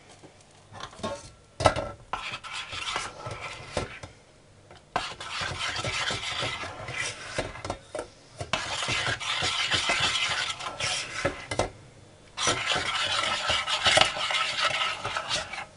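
Metal spoon stirring and scraping a thick chocolate filling mixture in a glass bowl. A few sharp clinks against the bowl come first, then two long bouts of steady scraping with a short pause between them.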